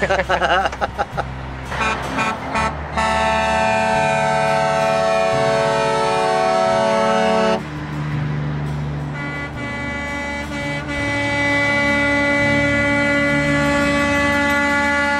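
Semi-truck air horns sounding in two long blasts, each a chord of steady tones, the first lasting about four and a half seconds and the second about six, with truck engines running underneath.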